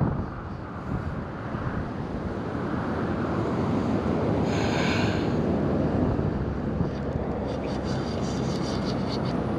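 Wind buffeting the microphone, a steady rumble and rush. There is a short higher-pitched sound about halfway through, and rapid faint ticking in the last couple of seconds, which fits a spinning reel being cranked.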